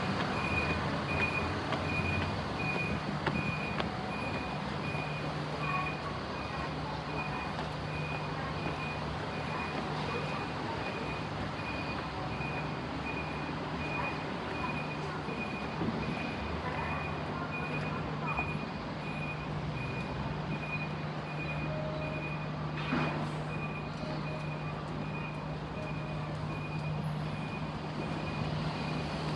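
Railway level-crossing warning alarm ringing steadily, a high electronic beep repeating about twice a second, over a low steady hum.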